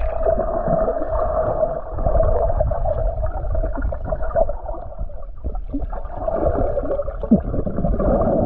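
Muffled underwater sound in a swimming pool, heard with the microphone submerged: churning water and bubbling gurgles over a steady hum, with all the high sound cut off.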